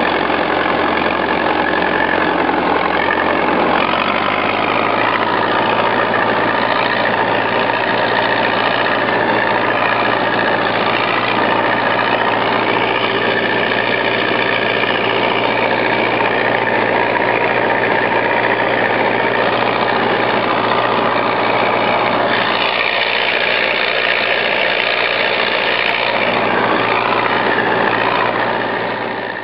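SK-5 Niva combine harvester running steadily under load while cutting buckwheat into windrows, its engine and header machinery heard loud from the cab. The low engine hum shifts slightly about four seconds in.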